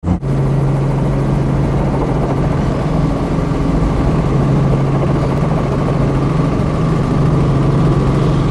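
Robinson R44 Astro helicopter's six-cylinder Lycoming piston engine and rotor running, heard from inside the cabin: a loud, steady low hum over a dense wash of rotor and engine noise.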